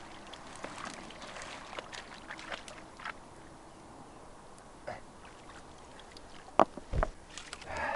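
Faint scattered crackles and light splashing in shallow stream water, with two sharp knocks late on and a louder splash of water just at the end.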